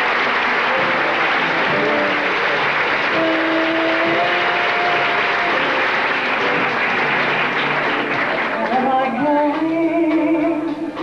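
Audience applauding over a live band, with a few held instrument notes showing through. About two-thirds of the way in, the applause dies down and a singer starts singing into a microphone with the band.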